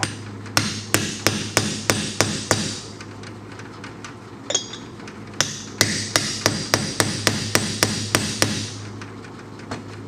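Hammer tapping a wheel bearing race down into a truck's front hub, metal on metal with a ringing clank on each blow. It comes in two runs of quick strikes, about three or four a second, with a single blow between them.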